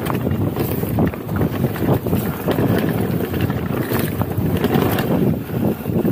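Mountain bike riding fast down a rough dirt trail: wind rushing over the microphone mixed with tyre noise and the frequent rattles and knocks of the bike over rocks and ruts.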